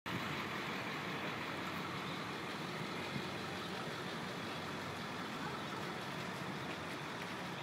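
Steady city street ambience: a constant, even rumble and hiss with no distinct events standing out.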